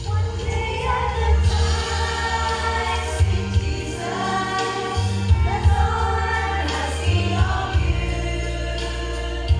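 Women's choir singing a gospel hymn together, accompanied by an electronic keyboard playing steady low bass notes that change every second or two.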